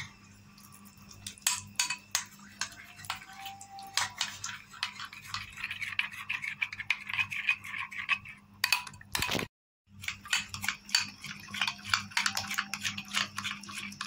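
Metal spoon stirring a thick mayonnaise-based sauce in a glass bowl, with quick repeated clicks and scraping of the spoon against the glass. The sound breaks off for a moment about nine seconds in, then the stirring resumes.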